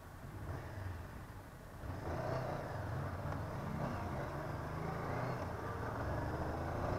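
Honda CB500F's parallel-twin engine running while riding, heard at a low level under some road noise; it gets louder about two seconds in and then holds steady.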